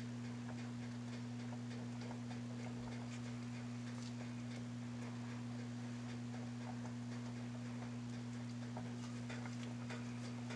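A steady low electrical hum, with faint scattered clicks and light taps from hands working food and utensils on the counter.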